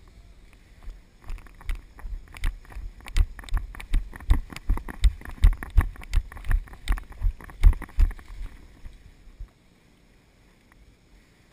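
Running footsteps of a player carrying a body-mounted camera: a steady run of heavy thuds, each with a sharp click, about two to three strides a second. They start about a second in and stop about eight seconds in as he reaches cover.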